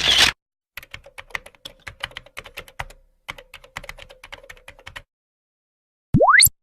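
Computer keyboard typing sound effect: about four seconds of rapid, irregular key clicks. It is preceded by a short noisy burst, and near the end a quick upward-sweeping whistle tone follows.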